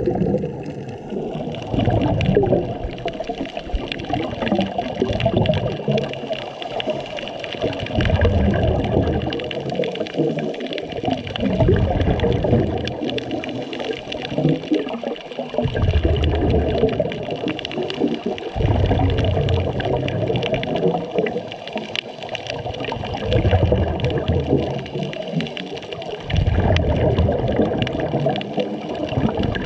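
Scuba regulator breathing heard underwater: low rumbling surges of exhaled bubbles every three to four seconds over a steady underwater hiss.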